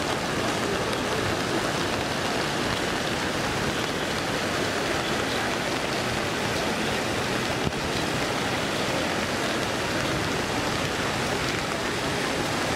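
Steady rushing noise of heavy rain and muddy floodwater streaming over a road.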